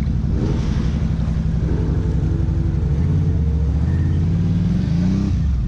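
ATV engine running steadily, then revving up with a rising pitch over a couple of seconds before dropping off briefly near the end.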